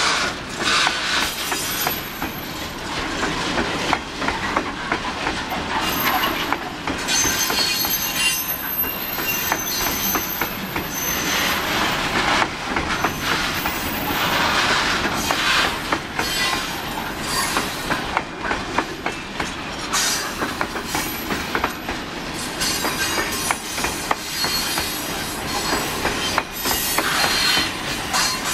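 Loaded covered grain hopper wagons of a freight train rolling past: steel wheels clacking over the rail joints, with brief high-pitched wheel squeals now and then.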